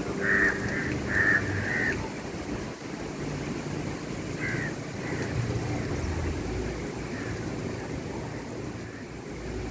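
A bird calling over steady wind and water noise: four short calls in quick succession in the first two seconds, then one more about four and a half seconds in.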